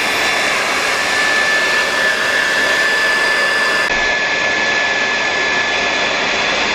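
Hot-air blower running steadily: a loud rush of air with one steady high whine, heating a phone screen to soften its adhesive for removal.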